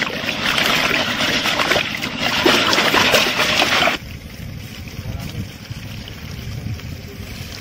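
Water sloshing and swishing around inside an iron kadai as the pan is tilted by its handle. About four seconds in the sound cuts off abruptly, leaving a quieter low background.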